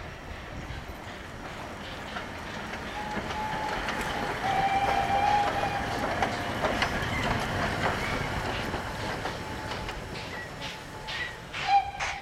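Steam locomotive running past at close range, its running gear rumbling and clattering over the rails, growing louder to a peak about halfway through, with a brief steady high tone at the loudest part. Near the end, sharp exhaust chuffs set in at about two to three a second.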